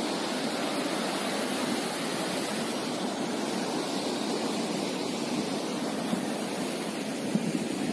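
Steady rush of ocean surf breaking against the foot of rocky sea cliffs.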